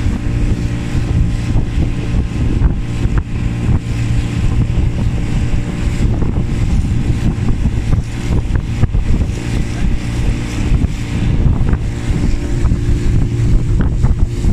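Motorboat engine running at a steady speed, with the hull knocking through small waves and wind buffeting the microphone.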